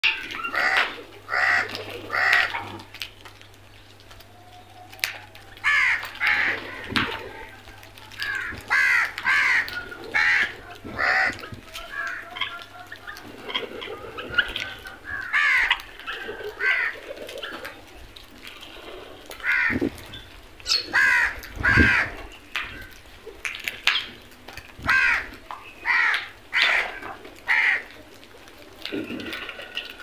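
House crows cawing over and over in short runs of harsh calls, several calls a second, with a few dull thumps in between.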